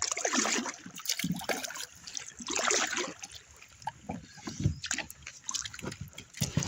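Kayak paddle strokes: the blades dipping and pulling through the water, with water trickling and splashing off them in irregular surges about once a second.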